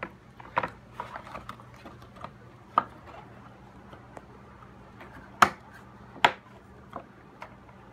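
Plastic grille parts being pressed onto a Mustang's front bumper, their retaining clips clicking into place: scattered sharp clicks and small knocks of hard plastic, the loudest two around five and six seconds in.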